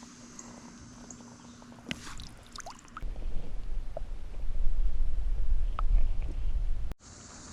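A few faint clicks about two seconds in, then a loud, deep rumbling on the microphone from about three seconds in that cuts off abruptly near the end.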